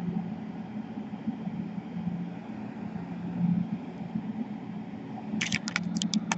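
Steady low hum, with a quick run of sharp small clicks about five seconds in.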